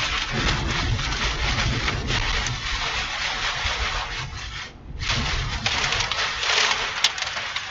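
Heavy wind-driven rain and gusting wind battering a moving vehicle: a dense rushing noise with a low rumble, easing briefly a little past halfway.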